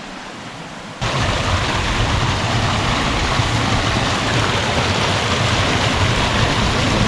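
Rushing water of a waterfall on a mountain stream, a steady noise that jumps suddenly louder about a second in.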